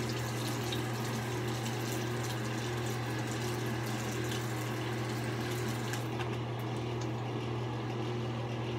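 Sink tap running, shutting off about six seconds in, as water is run to soak a shaving brush. A steady low hum sits underneath throughout.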